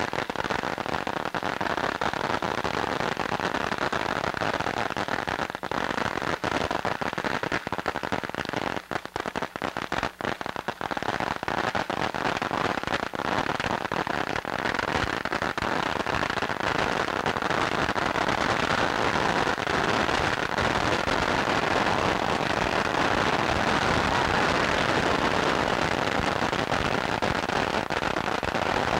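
A crisscrossed pile of firecracker strings going off in one long, unbroken crackle of rapid bangs, steady throughout.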